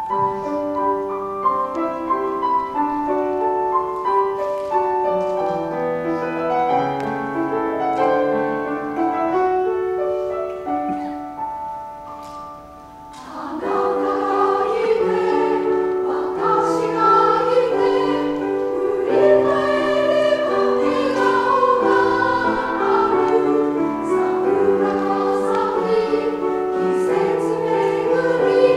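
A solo piano plays an introduction, dipping quieter after about twelve seconds; then a women's choir comes in singing in Japanese with the piano accompanying.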